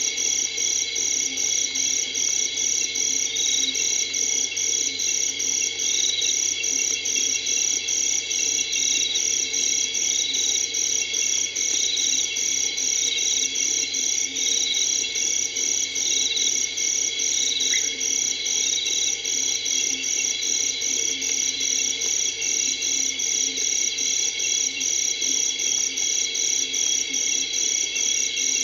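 Night insect chorus: crickets trilling in even pulses, about two a second, with fainter chirps repeating every second or two above a steady lower chorus.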